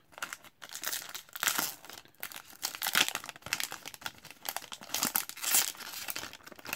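A foil trading-card pack wrapper is torn open by hand and crinkled as the cards are pulled out, in irregular crackling flurries.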